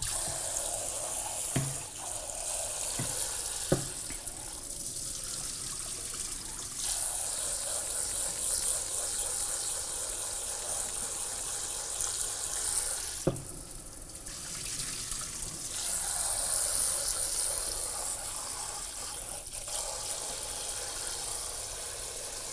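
Kitchen tap running into a glass bowl of rice as the rice is rinsed by hand to wash off its starch, water splashing and swirling. The flow eases briefly twice, and there are a few light knocks.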